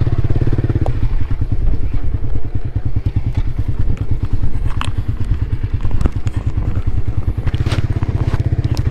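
Motorcycle engine running at low, steady revs, with a few sharp knocks and clatters as the bike jolts over a rough track.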